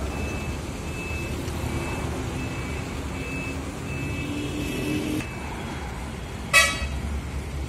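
A truck's reversing alarm beeping repeatedly over the low rumble of heavy-vehicle engines, stopping about five seconds in. A brief, loud, sharp sound follows at about two-thirds of the way through.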